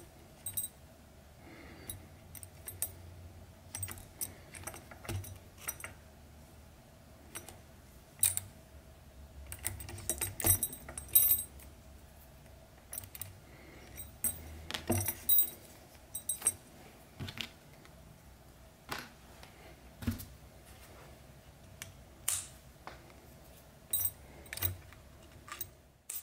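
Hand saddle-stitching a leather strap with two needles: irregular light clicks and metallic clinks as the needles are pushed through the leather and knock against the brass buckle, and the thread is pulled tight.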